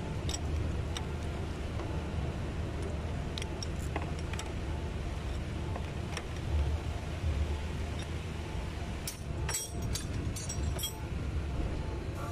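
Low steady background rumble, with scattered light clicks and a short run of sharp metallic clinks about nine to eleven seconds in.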